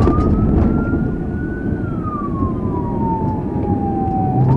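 Police siren wailing in a slow cycle: it rises in pitch, falls slowly for nearly three seconds, then starts rising again near the end. Under it runs a steady low rumble of the car driving over a rough dirt field.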